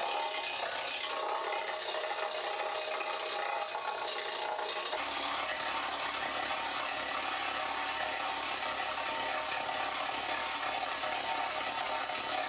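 A stiff wire brush working steadily over a steel guitar body, a continuous scrubbing whir with a few steady tones in it. It is taking out the nicks left by the grinder and laying down a brushed grain in one direction.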